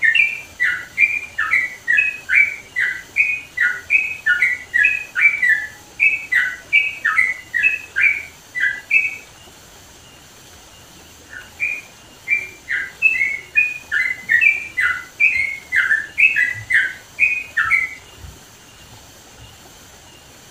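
Yellow-vented bulbul (trucukan) singing loudly in rapid strings of short, chattering notes, about two a second, in two bouts with a pause of about two seconds between them. The song stops about eighteen seconds in.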